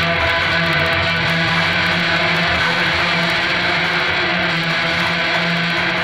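Instrumental background music featuring guitar.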